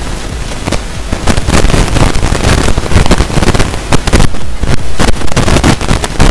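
Loud, dense, irregular crackling and popping noise over a low rumble, with no speech.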